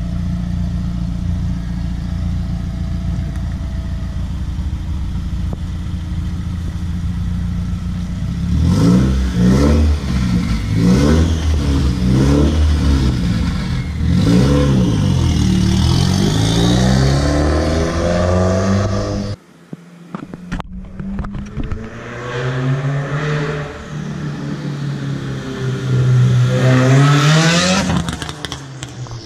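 Subaru WRX turbocharged flat-four through a straight-pipe exhaust on a catless J-pipe, idling steadily and then revved again and again, the pitch climbing and falling with each blip. About two-thirds of the way through the sound cuts off abruptly, then the engine is heard running and revving again.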